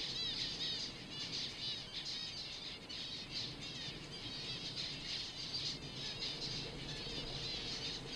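A colony of zebra finches calling, many short high calls overlapping in a continuous chorus.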